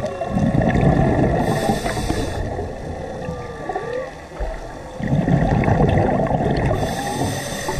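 Scuba diver breathing through a regulator underwater: twice, a rumbling burst of exhaled bubbles, then a short hiss of inhalation. Faint gliding tones can be heard in the background.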